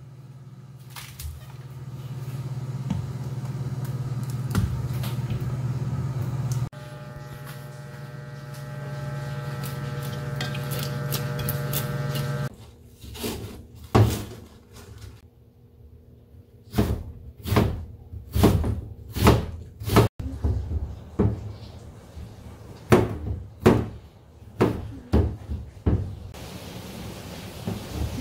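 Water boiling hard in a pot on a cooktop, a steady rushing with a low hum. About halfway through this stops and a kitchen knife starts chopping on a plastic cutting board: sharp, uneven strokes as green onions and then mushrooms are sliced.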